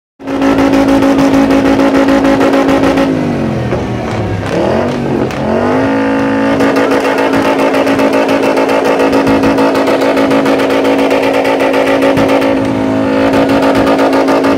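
Big-rig truck engine revved hard and held at a high, steady pitch; twice, about four to five seconds in, the revs drop and climb straight back.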